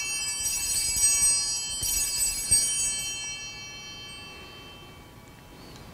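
Altar bells, a cluster of small bells, shaken twice and left to ring, fading out over a few seconds. They are rung at the elevation of the host just after the words of consecration.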